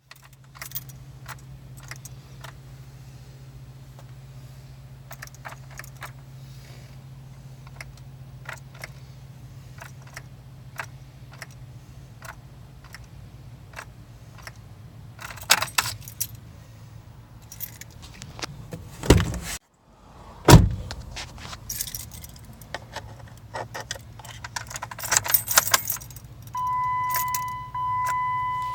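Keys jangling and clicking at the ignition of a 2015 Jeep Wrangler JK that won't start, over a steady low hum. Two loud knocks come about two-thirds of the way through, and a repeating electronic chime starts near the end.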